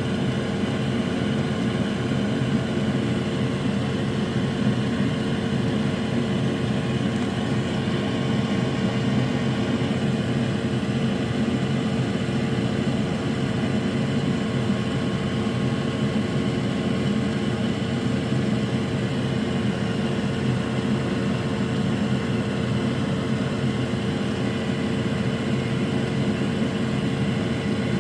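Steady whirring drone of a running fan, unchanging throughout, with a few fixed tones humming in it.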